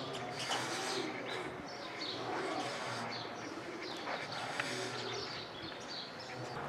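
Birds chirping in short, scattered calls, with doves cooing.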